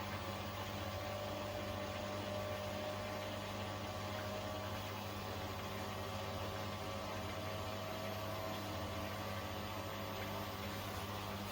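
Beko WTK104121A washing machine running on its rinse programme: a steady machine hum with a faint wavering tone over it.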